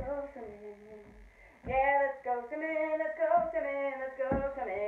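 A woman singing a few long held notes, starting about two seconds in after a short pause.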